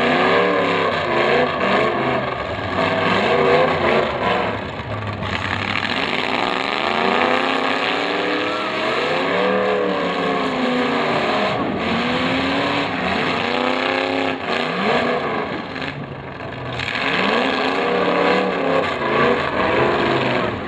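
Demolition derby cars' engines revving up and down again and again as the cars push and ram each other, several engines overlapping in rising and falling sweeps of pitch. The noise eases briefly twice.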